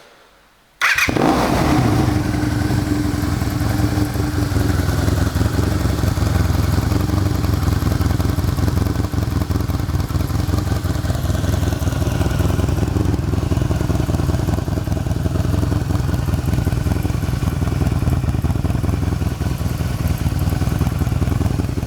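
Honda VF500F2 V4 motorcycle engine, fitted with a Harley-Davidson exhaust pipe, starting about a second in and then running at a steady idle.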